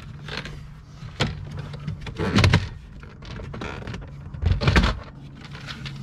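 Plastic lower dash trim panel of a Ford Transit being pulled loose by hand, its clips popping and the panel clattering, with a click about a second in and two louder bursts around two and a half and near five seconds in.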